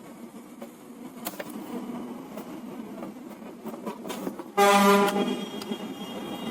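A vehicle horn honks once, loud, for about half a second near the end. Under it there is a steady low background rumble and a few light clicks.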